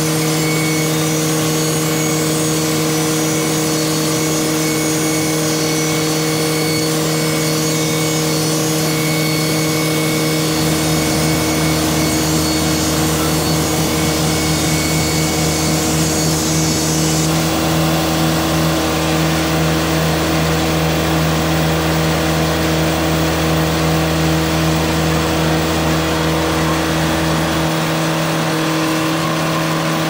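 Timberking 2000 band sawmill's engine running steadily at high speed, with the blade cutting pine at the start. A deeper low hum joins about ten seconds in and drops out near the end.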